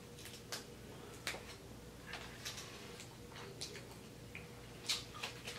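Seafood boil being picked through in a clear plastic bag and eaten: scattered soft clicks and crinkles from the bag and shrimp shells, with eating sounds close to the microphone.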